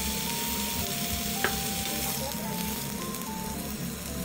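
Thin slices of yakiniku meat sizzling steadily in a frying pan. A single sharp tap comes about a second and a half in. A light background tune plays over the sizzle.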